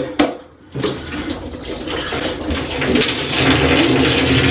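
Beer pouring from two cans over a man's head and splashing down onto his body and into the tub, the splashing getting heavier about three seconds in. A sharp click comes near the start.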